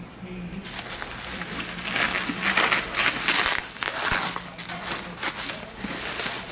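Packaging crinkling and rustling as it is handled and opened by hand, in uneven bursts.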